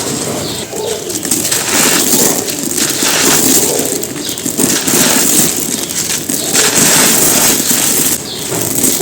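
Dry cement chunks being crushed and crumbled, a continuous gritty crunching that surges about once a second.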